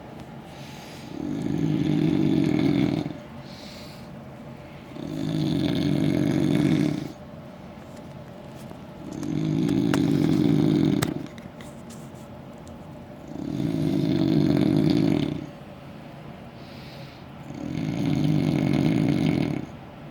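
A man snoring heavily and rhythmically: five long rasping snores, about two seconds each, come roughly every four seconds.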